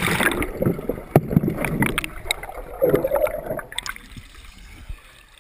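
Underwater knocks, scrapes and gurgling from a pond filter part being fitted back into place, heard through a submerged camera. It dies down about four seconds in.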